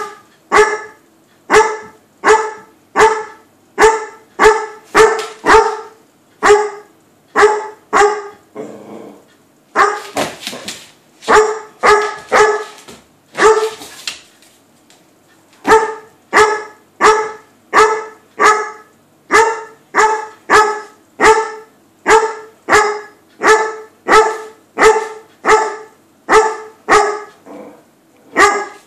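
Weimaraner barking over and over in play: short, sharp barks about one and a half a second, in long runs with a couple of brief pauses.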